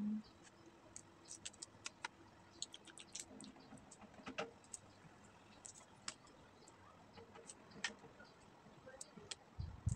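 Boiled balut duck egg being peeled by fingernails: small, irregular clicks and crackles of the shell cracking and being picked off.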